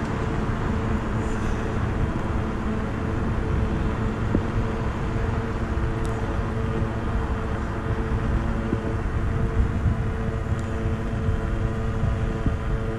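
Electric scooter (IO Hawk Legend lite) riding along a street: steady wind and road rumble with a steady motor hum, and a few light clicks.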